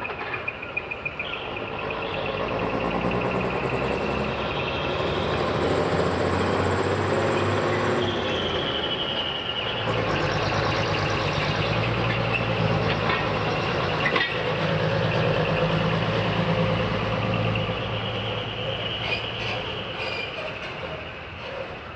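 Diesel engine of a heavy decorated truck (dekotora) running as it drives past, building up a few seconds in, loudest through the middle and fading toward the end.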